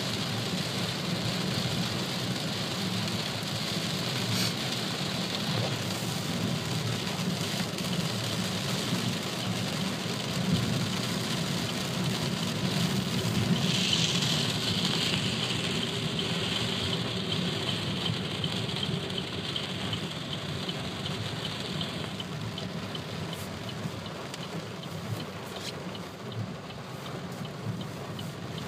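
Heavy rain on a moving car and tyres hissing through water on a flooded road, heard from inside the car over a low road rumble. The hiss grows brighter about halfway through and eases toward the end.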